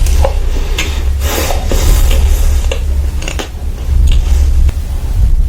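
Close-miked eating: chewing and squishing with irregular clicks and scrapes of utensils against dishes, over a steady low rumble.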